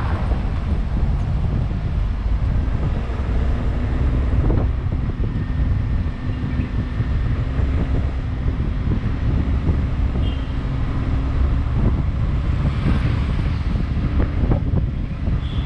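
A vehicle running along a road, with heavy wind rumble on the microphone.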